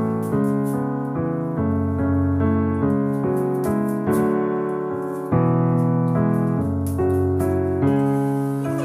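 Background piano music: chords struck about once a second, each fading before the next.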